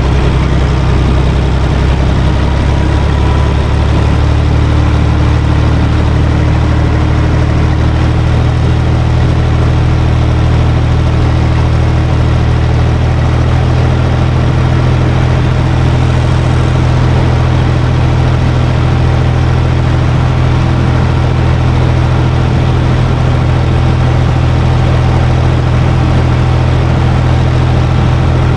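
UTB Universal U445 DT 4x4 tractor's four-cylinder diesel engine running steadily under load while rotary tilling, heard from inside the cab.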